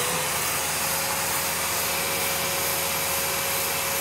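Electric balloon inflator (Prima B322 Lagenda Ultra) blower motor running steadily with a steady whine, filling a balloon through its nozzle in manual mode; it cuts off at the very end.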